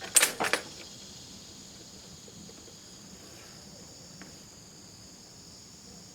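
A brief cluster of sharp clicks or knocks just after the start, then a steady, high-pitched drone of insects.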